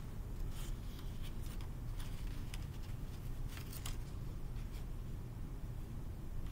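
A sheet of white paper being handled and bent as it is folded, giving short rustles and crinkles, several in the first four seconds, over a steady low room hum.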